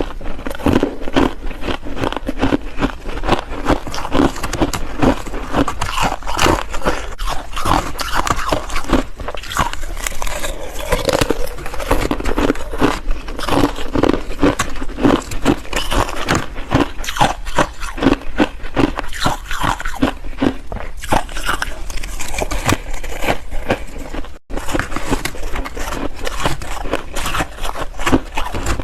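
Ice being bitten and chewed close to the microphone: a continuous run of rapid, loud crunches. There is a brief gap about three quarters of the way through.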